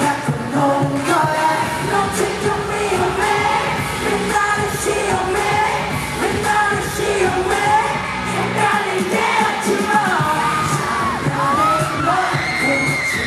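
Live K-pop song played through an arena's sound system: a driving beat with male voices singing into handheld microphones, and a high vocal line rising near the end.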